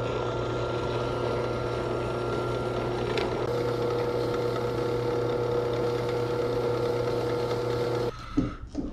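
Benchtop drill press motor running steadily, spinning a brass temperature-sensor fitting in its chuck while a file and abrasive are held against it to turn down its diameter, with a steady hum and a rough scraping hiss. The motor cuts off about eight seconds in.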